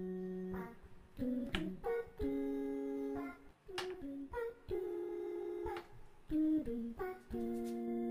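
Background instrumental music: a slow melody of held notes, each lasting about a second and starting with a sharp pluck.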